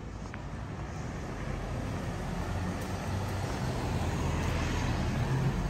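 Street traffic noise: a steady hum of road vehicles that grows gradually louder through the second half, as of a car drawing near.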